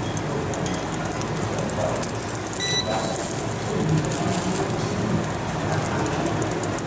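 Egg omelette sizzling and crackling in a frying pan on an induction cooktop, a steady hiss. A brief high ping rings out about two and a half seconds in.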